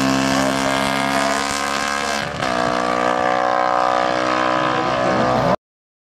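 Classic 500 cc racing motorcycle engine running hard at high revs. The sound jumps to a different pass about two seconds in and cuts off suddenly near the end.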